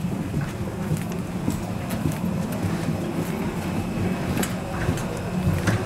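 Steady low machinery rumble in a jet bridge, with scattered light clicks and footsteps of people walking through it.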